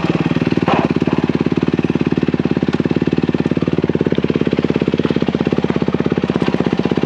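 Motorcycle engine idling steadily, with an even, rapid chugging pulse.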